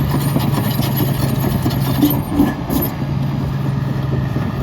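Komatsu D65EX-18 crawler bulldozer's diesel engine running steadily while the machine works, with a few sharp metal clanks about two seconds in.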